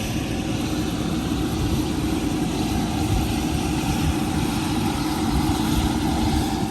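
Helicopter running on the ground: a steady, loud engine hum with a low rushing rumble from the rotor.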